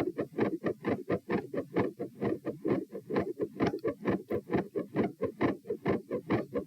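Heart sounds recorded over the chest, beating fast at about 132 beats a minute: a rapid, even run of short thuds with several sounds to each beat. The uploader describes the pattern as a third heart sound and a fixed split second sound with a murmur.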